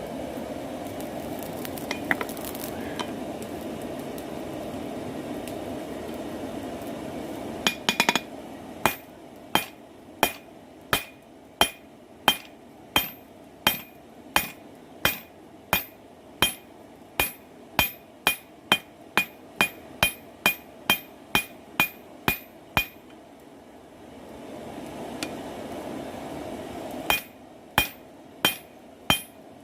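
A forge runs with a steady rushing noise, then a hammer strikes hot steel on an anvil in an even rhythm of about one to two blows a second, each blow ringing. The blows stop for a few seconds with the forge noise back, then start again near the end. This is the forging of a knife blank, the steel bar being flattened into flat stock.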